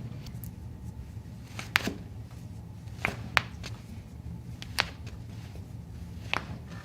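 About five sharp clicks and pops, spaced a second or more apart, during hands-on chiropractic treatment, over a low steady hum.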